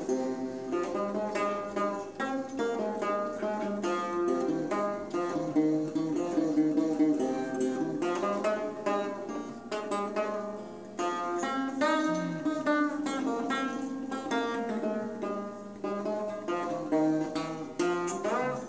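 Handmade plucked lute modelled on the rabab and sarod, with a goat-skin top, a metal fingerboard, four playing strings tuned in fourths from C and sixteen sympathetic drone strings. It is played as a run of quick plucked notes, with a few notes slid up in pitch along the fingerboard. The sympathetic strings ring on behind the played notes like a reverb.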